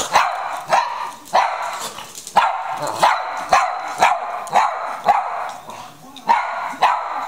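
A small dog barking over and over, about a dozen sharp, high barks in quick succession. The barking is aimed at its owner, who has just told the dogs the treats are all gone.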